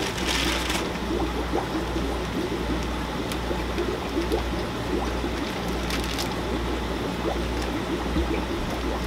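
Aquarium water bubbling and trickling over a steady low hum, as from the fish room's air pump and air-driven filters, with a brief plastic-bag rustle just after the start.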